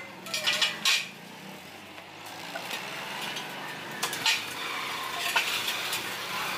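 Hollow steel square tubes clanking against each other and on a concrete floor as they are set down and shifted into a rectangular frame. There are a few sharp metallic knocks, two within the first second and more around four, five and six seconds in.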